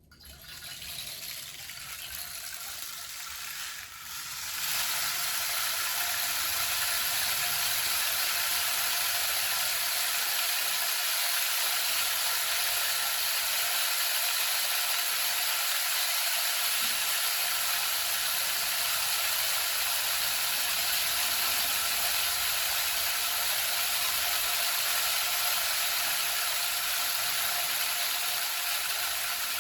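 Rain stick sounding: a continuous fine rattling shower of pebbles trickling through the tube. It starts softly, grows louder about four seconds in and then holds steady.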